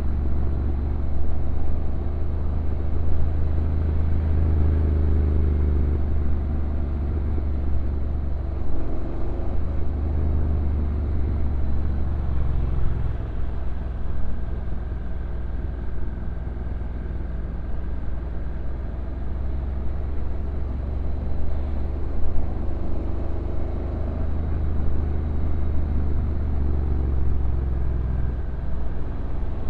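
Honda NC750X's parallel-twin engine running as the motorcycle rides downhill, its note rising and falling several times.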